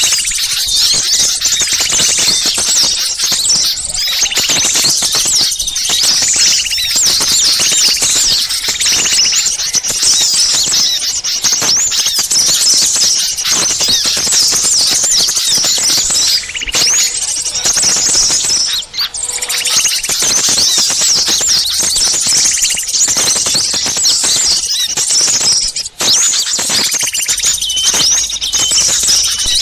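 A dense, noisy chorus of many small songbirds chattering and chirping at once, rapid high-pitched squeaky calls overlapping without a pause. This is a bird-lure recording made to draw wild small birds in, with two brief gaps, about 19 and 26 seconds in.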